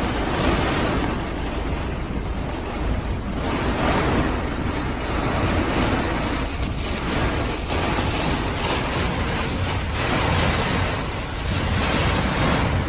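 Heavy storm rain and strong wind beating on a van's roof and windscreen: a dense rush that swells and eases every couple of seconds.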